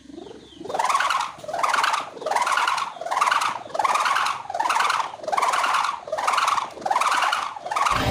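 Sendaren kite hummer, its stretched ribbon vibrating in the wind to make a wavering hum that swells and fades in regular pulses, about three every two seconds, the pitch rising and falling with each pulse.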